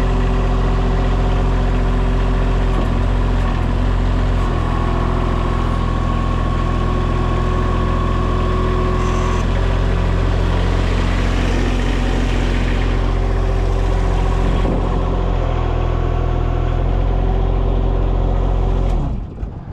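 Mini skid steer's engine running steadily at idle, then shut off about a second before the end, stopping abruptly.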